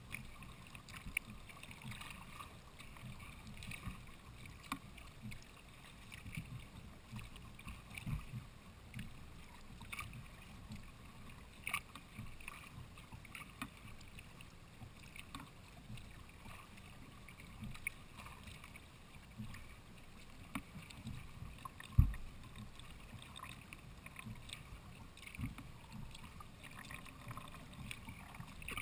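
Sea kayaks being paddled on calm water: soft irregular splashes and drips from the paddle blades, with low knocks against the hull. One louder low thump comes about three-quarters of the way through.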